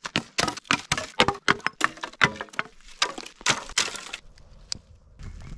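Dry sticks and branches clattering and snapping as they are piled up for a campfire: a quick run of sharp wooden cracks and knocks that stops about four seconds in.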